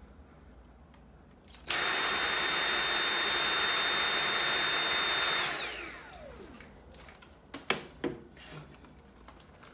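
Dyson V7 Motorhead cordless stick vacuum switched on in normal mode about two seconds in. It runs steadily for about four seconds, a rushing of air with a high whine over it. It is then switched off, and its motor winds down with a falling whine. A few small knocks follow near the end.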